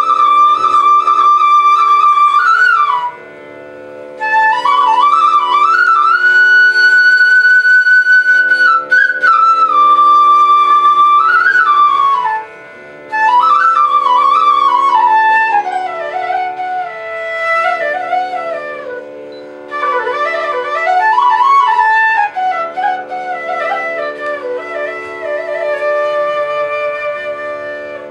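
Nepali bamboo transverse flute (bansuri) playing a slow, free-time melody with long held notes, slides and trills, broken by three short pauses for breath. A steady drone sounds underneath, and no drums are played.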